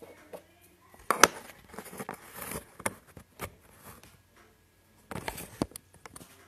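Handling noise on a phone's microphone: scattered clicks, taps and rustling as the handheld phone is gripped and adjusted, in two bunches, with the loudest click about a second in.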